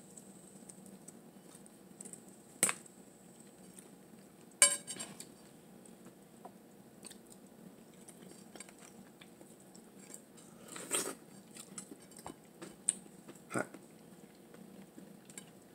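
Eating boiled blue crab by hand over a glass bowl: a few sharp clinks of a metal utensil and crab shell against the glass, the loudest about three and five seconds in, with quiet cracking, picking and chewing between them.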